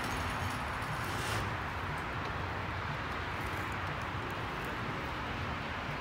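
Steady outdoor background noise with no distinct mechanical rhythm, and a faint single click about a second in.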